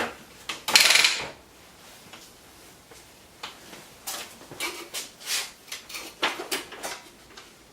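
Homemade light stand parts being handled and fitted together: a series of knocks and clatters, with a longer scraping slide about a second in.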